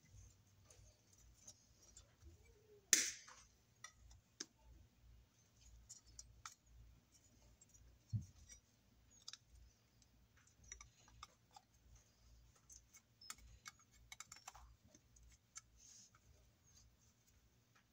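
Light metallic clicks and taps of pliers gripping and working a 3/4 inch knockout in a sheet-steel plate, with one sharper click about three seconds in.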